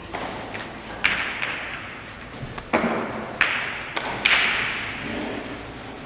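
Billiard shot: a sharp click about a second in as the cue strikes the ball, then a string of clicks and knocks over the next three seconds as the balls hit one another and the cushions.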